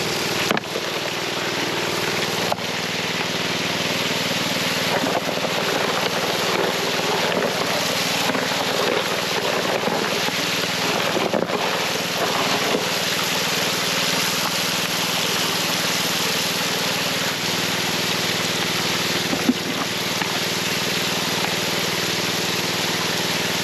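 Small engine-driven water pump running steadily, feeding a highbanker sluice, with water gushing from the spray bar onto the grizzly and washing through the gravel. A few brief knocks of material and buckets.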